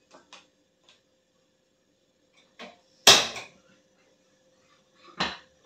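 Kitchenware being handled at a gas stove: a few light clicks, then a loud sharp knock about three seconds in and another shorter knock near the end.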